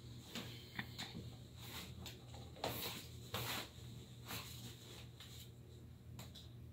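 Faint rustling of clothing and handling noise with scattered small knocks and clicks, as a violinist sits down on a chair and settles his violin and bow, over a low steady room hum.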